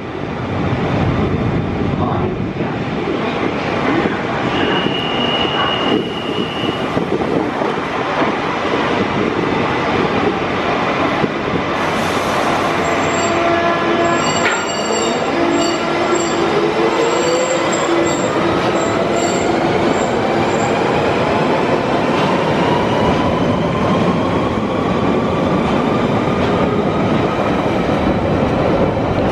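London Underground Central Line 1992 Stock train pulling out of the platform: a steady rumble, then, about halfway through, the traction whine rises steadily in pitch as the train accelerates away. A short steady high tone sounds a few seconds in.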